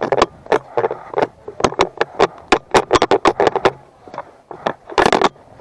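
A GoPro rattling in its loose base-plate mount: irregular sharp knocks and clicks, several a second and sometimes in quick clusters, as the camera shakes around.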